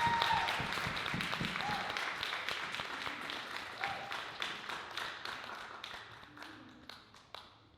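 Audience applause dying away, the clapping thinning to a few scattered claps near the end.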